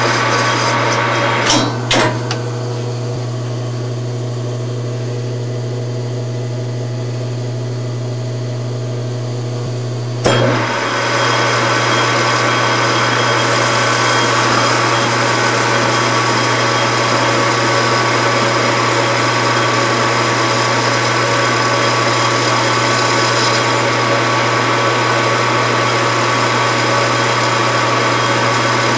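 Metal lathe running steadily with a constant hum while turning a billet aluminum part. A couple of sharp clicks come near two seconds in, and about ten seconds in the tool starts cutting the aluminum and the sound steps up, louder and brighter, and stays so.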